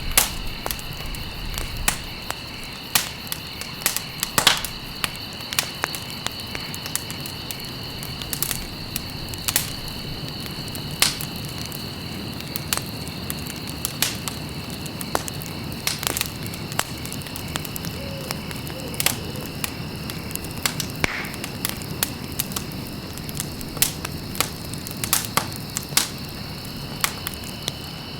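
Campfire burning, crackling and popping with irregular sharp snaps several times a second over a soft low rustle of flame. A steady high two-note tone runs underneath.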